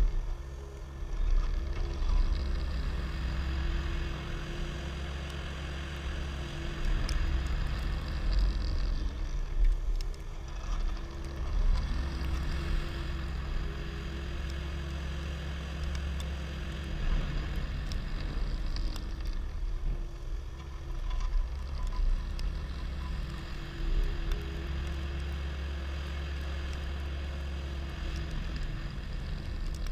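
Skid steer engine running steadily with a deep, low hum, its level swelling and easing every few seconds as the machine works.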